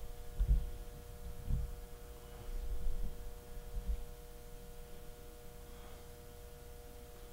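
A steady electrical hum, with a few dull low knocks in the first four seconds from hands working a pin into a boar cape on the mount.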